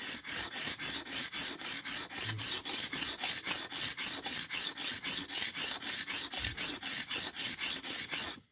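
Steel knife blade scraped back and forth on a cheap whetstone in quick, even strokes, about five a second, grinding a new edge (apex) on the second side of the blade. The strokes stop abruptly near the end.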